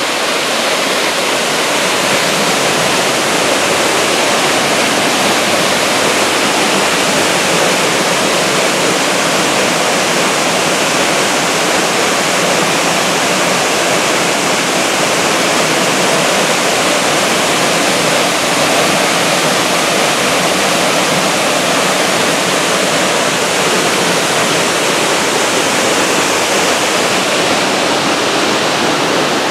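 Cherokee Falls pouring over rock into its pool: a loud, steady rush of falling water that does not change.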